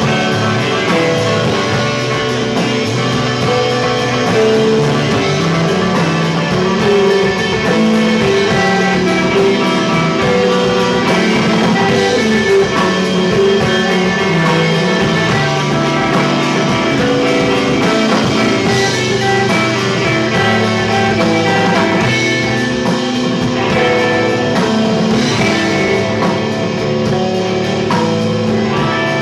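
Live rock trio of electric guitar, bass guitar and drum kit playing an instrumental passage, loud and continuous.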